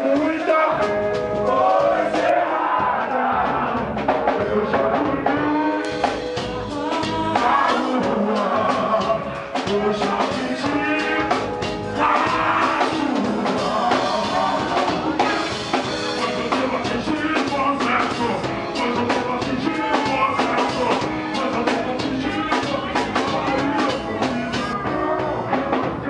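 Live reggae band playing: a male singer on the microphone over guitar, bass and drum kit, the drums hitting harder and brighter from about six seconds in.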